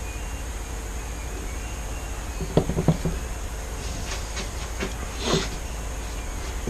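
Wooden canvas frame knocking and clicking against its support as the canvas is tilted by hand: a quick cluster of knocks about two and a half seconds in, a short scrape a little after five seconds, and a few lighter clicks. A steady background hum and hiss runs underneath.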